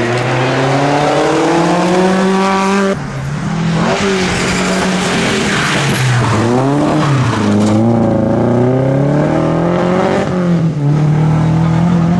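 Rally car engines passing on a stage, in edited cuts. First a Lancia 037's engine rises steadily in revs for about three seconds and breaks off at a sudden cut. An Opel Ascona's engine then climbs and falls in revs several times through a bend, and near the end another car's engine holds a steadier note.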